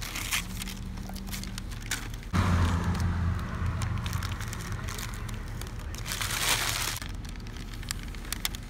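Newspaper masking being peeled and crumpled off a car bumper: paper crinkling and rustling with small sharp crackles. A louder low hum with a hiss comes in suddenly a couple of seconds in and cuts off about seven seconds in.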